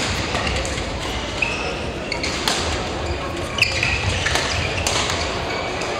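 Badminton rackets striking the shuttlecock in a fast doubles rally, a quick run of sharp hits about one to two a second, with short squeaks of court shoes on the hall floor between them.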